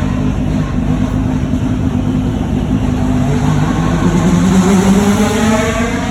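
Car engine running steadily, then accelerating hard from about three seconds in, its pitch rising and growing louder.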